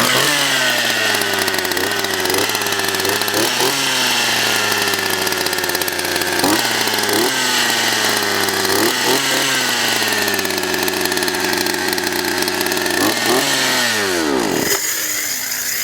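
Craftsman two-stroke chainsaw running just after starting, its throttle blipped briefly about eight times so the engine speed jumps and falls back. About fourteen seconds in the pitch drops away as the engine shuts off.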